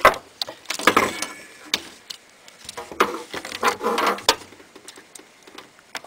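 Handling noise from a computer power supply's cable bundle: wires rustling and plastic connectors knocking against the steel case and desk in a few irregular clicks and clatters, trailing off near the end.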